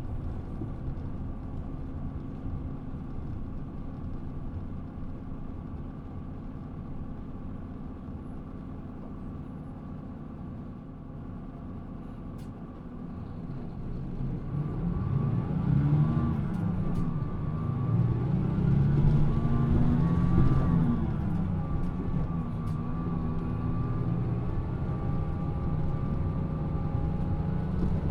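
Mitsubishi Fuso PA-MK25FJ city bus engine running at a steady low pace and easing off, then pulling away with its engine pitch rising and dropping twice as it works up through the gears, settling into a louder steady run near the end.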